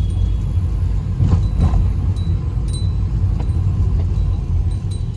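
Toyota car on the move, heard from inside the cabin: a steady low engine and road rumble, with a couple of faint knocks about a second and a half in. The engine mountings have just been replaced, and the hum the car used to make is not heard.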